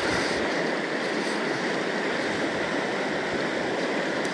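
Fast, shallow river running over a stony bed, a steady, even rush of water.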